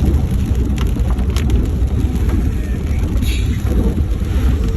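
Car driving through a rainstorm: a steady low engine and road rumble, with a few scattered sharp ticks.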